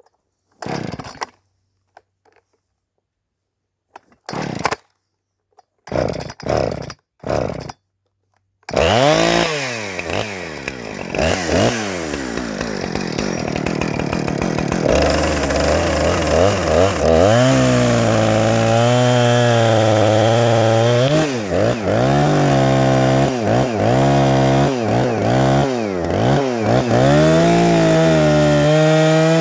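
A few short, separate sounds with silences between them, then a chainsaw comes in loud about nine seconds in and runs on while cutting into a log. Its engine speed rises and falls over and over as the cut goes on.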